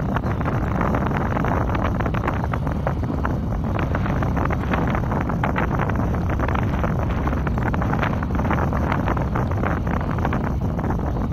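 Wind gusting against the microphone, over the steady distant running of a Kubota M6040SU diesel tractor working through a flooded, muddy paddy.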